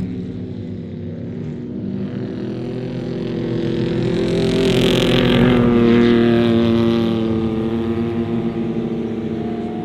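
Trophy truck's engine running hard on a dirt track, growing louder as it approaches, loudest about halfway through, then fading as it drives past.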